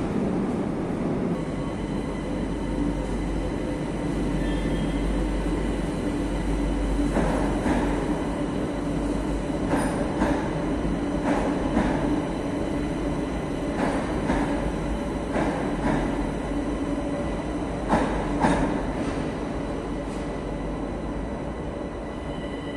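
Madrid Metro train running along the platform track in an underground station: a steady rumble and hum, with a series of sharp clicks from the wheels over the rails through the middle, easing slightly near the end.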